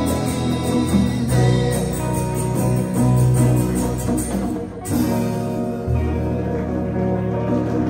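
Live band playing the instrumental close of a song on acoustic and electric guitars with congas, with a short break in the sound about five seconds in followed by a new held low chord.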